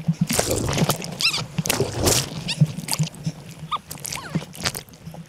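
Whitewater splashing and sloshing against a camera at the water's surface on a bodyboard, in a quick run of irregular splashes, with a few short squeaky chirps about a second in and again near four seconds.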